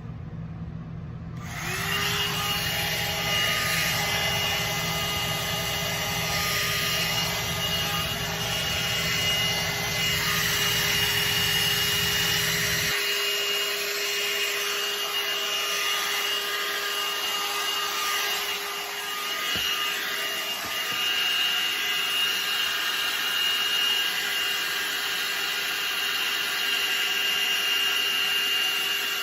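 Hot air brush (hair dryer brush) running on its high setting: a steady fan blowing with a constant whine, switching on about a second and a half in.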